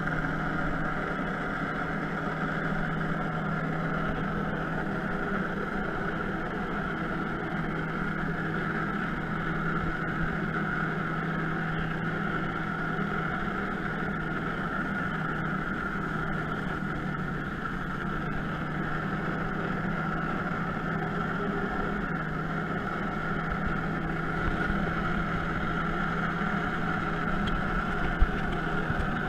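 Personal watercraft engine running steadily at constant revs, driving its jet pump to force water up the hose to a hovering water-jet board. A single sharp click near the end.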